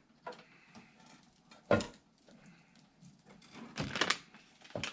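A few sharp knocks and clicks with soft rustling from computer parts being handled and fitted into a PC case. The loudest knock comes just before two seconds in, and a cluster of knocks comes around four seconds in.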